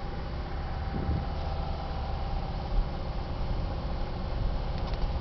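A motor vehicle's engine running steadily, a low rumble with a faint steady hum above it.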